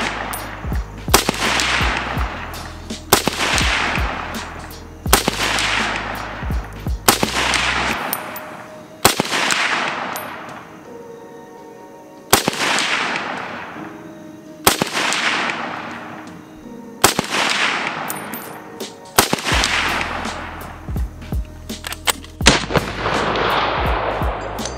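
James River Armory BM59 semi-automatic rifle in 7.62×51 mm firing slow, aimed single shots, about a dozen at roughly two-second intervals. Each sharp report trails off in a long echo.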